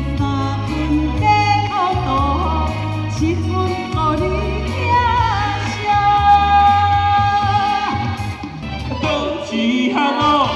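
A woman sings a pop song into a microphone over amplified backing music with a repeating bass line. She holds one long note in the middle. Near the end the song cuts to a man singing.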